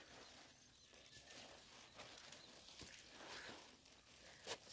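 Near silence: faint outdoor background with a few soft footfalls of rubber boots on a muddy dirt track, the clearest about four and a half seconds in.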